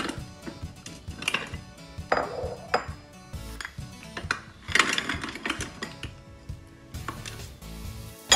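Frozen pineapple chunks and frozen coconut-milk cubes tipped from a ceramic bowl, clattering and knocking into a food processor's stainless steel bowl in several separate bursts.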